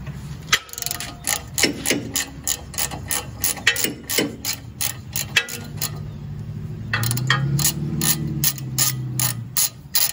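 Socket ratchet clicking in quick repeated runs as a 3/4-inch socket turns the upper ball joint nut, with a low hum underneath in the second half.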